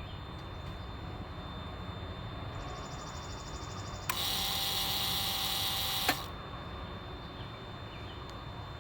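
Electric hydraulic pump of a Lexus GS 300 brake booster/ABS assembly running during its programming cycle, which bleeds fluid from the reservoir, as a steady hum. About four seconds in, a louder hissing burst with a steady whine starts abruptly and cuts off about two seconds later.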